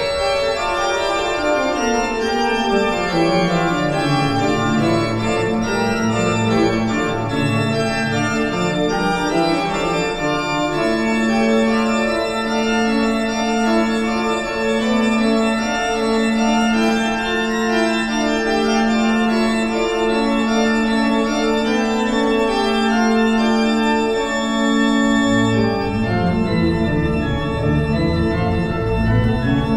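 Pipe organ playing a piece in sustained chords: a bass line steps downward early on, a single middle note repeats evenly through the middle, and deep bass notes come back in near the end.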